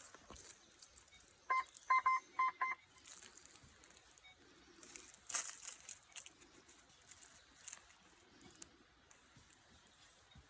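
Metal detector giving a quick run of five or six short, high beeps at one pitch, signalling a target. This is followed by irregular scraping and rustling.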